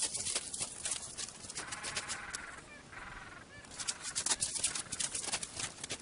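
Gentoo penguin giving two short honking calls about two and three seconds in, among sharp crunching clicks of feet on snow that grow louder near the end.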